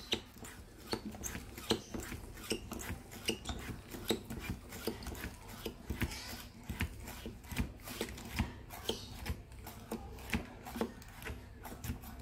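Staresso Mirage manual espresso maker being hand-pumped while a double shot is pulled: a run of irregular clicking, rasping strokes, about two or three a second.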